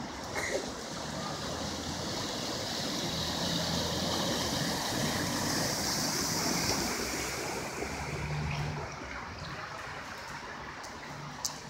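Rushing floodwater after a downpour, with a low engine hum underneath. The water noise swells over several seconds and eases off about eight seconds in.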